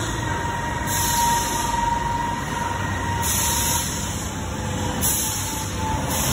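Steady machine rumble with a thin, steady whine over it.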